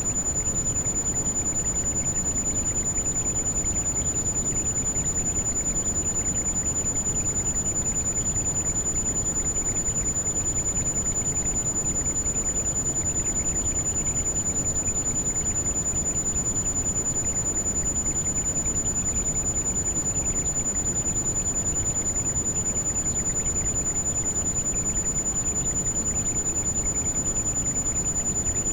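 Steady heavy rain, an even rushing noise weighted toward the low end. A continuous high-pitched tone is held unchanged over it, the kind of tone played in tinnitus sound therapy.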